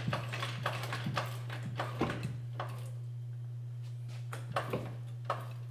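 Hydraulic floor jack being pumped up under a truck's front lower control arm: a run of light metallic clicks and knocks, thinning out toward the end, over a steady low hum.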